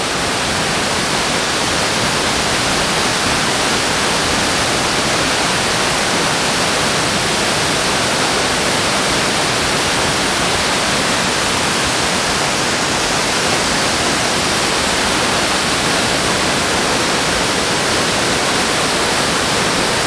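Waterfalls pouring: a steady, unbroken rush of falling water.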